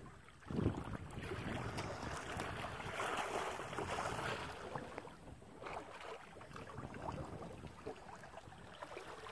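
Water sloshing and splashing around a small boat, with wind buffeting the microphone and a single knock about half a second in.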